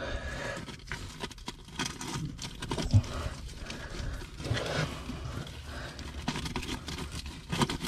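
A man grunting and breathing hard with effort as he reaches into a rock crevice to wiggle a lobster out by hand, with rustling and a dull knock about three seconds in.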